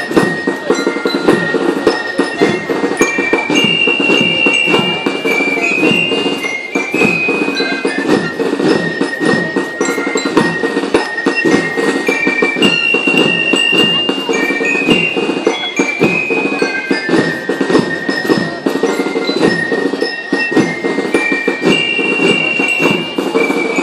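Band music: glockenspiels (bell lyres) ringing out a melody of clear high notes over busy drumming.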